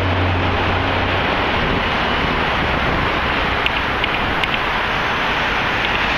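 Steady city street noise of traffic with wind rushing on the microphone. A low engine hum fades out about a second in, and a few faint sharp clicks sound in the second half.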